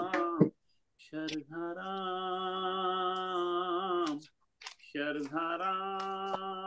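A devotional bhajan sung by a man over a Zoom call: two long held notes, each followed by a brief drop-out to silence.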